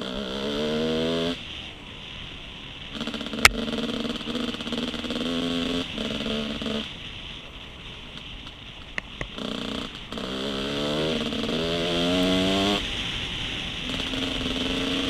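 Dual-sport dirt bike engine ridden on a trail, its note climbing as the throttle opens, easing off and climbing again several times. A single sharp crack sounds about three and a half seconds in.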